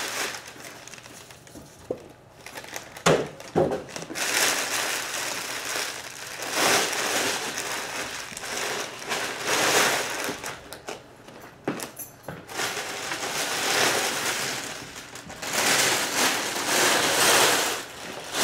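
Plastic and foam packaging rustling and crinkling in long bursts as a subwoofer is unpacked, with a few knocks from handling about three seconds in and again near the middle.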